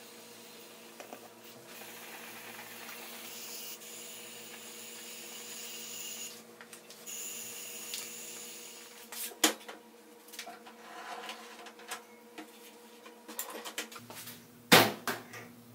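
Aerosol spray paint can hissing in two long bursts with a short break between, as red paint is sprayed. Then scattered clicks and handling knocks, and one loud clunk near the end.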